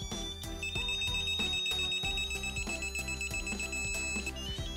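Digital torque wrench's electronic beeper as the wrench is loaded. The beep rises in pitch as the torque builds, then changes to rapid, even beeping for about three and a half seconds, which signals that the set torque has been reached. Near the end it starts rising again with the next pull.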